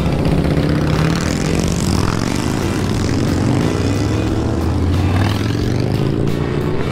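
Several cruiser motorcycles riding past one after another as they pull away, their engines rising and falling in pitch as each rider accelerates.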